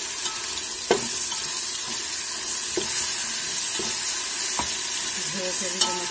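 Biryani masala of onions and ginger-garlic paste sizzling steadily in hot oil in a metal pot while a spatula stirs it, with a few sharp knocks of the spatula against the pot.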